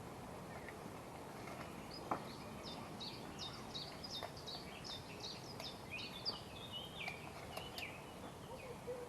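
A songbird singing a long phrase of quick, short, falling whistled notes, about three a second, over a steady outdoor hiss. A single sharp knock sounds about two seconds in.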